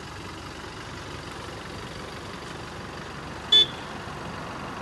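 Toyota Innova Crysta's engine running low and steady as the car moves slowly off the roadside, with one short horn beep about three and a half seconds in.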